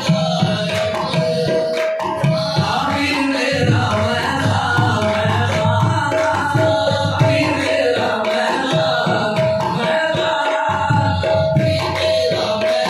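Devotional kalam sung in qawwali style to tabla, with a steady held note running underneath.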